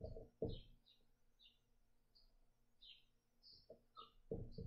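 Quiet dry-erase marker writing on a whiteboard: a few short strokes near the start and again near the end. Faint high chirps repeat every half second or so throughout.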